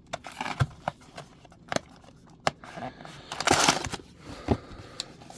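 Scattered taps and clicks of a cardboard booster box and foil booster packs being handled, with a short rustle about three and a half seconds in.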